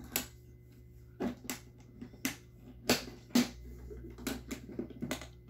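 Sharp plastic clicks and taps, about a dozen at irregular intervals, as small nail-kit containers and lids are handled and closed, over a faint steady low hum.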